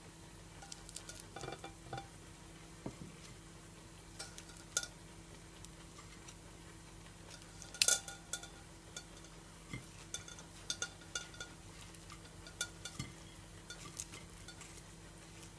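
Scattered light clicks and taps as crisp kakiage tempura fritters are set down and arranged on a ceramic plate, with chopsticks tapping toward the end. The loudest cluster of taps comes about halfway through.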